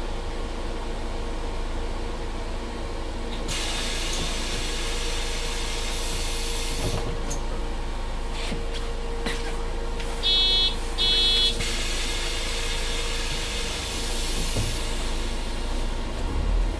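Interior running noise of a MAN Lion's City 12C Efficient Hybrid city bus: a steady hum with a held mid-pitched tone. A burst of air hiss comes in about three and a half seconds in, two short electronic beeps sound around ten seconds in, and a second hiss comes near the end.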